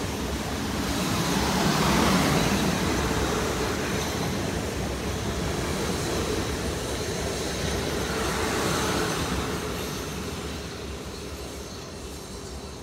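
South Western Railway electric multiple-unit trains passing along the platform, a steady rumble of wheels on rail. It swells about two seconds in and again around eight to nine seconds, then eases off toward the end.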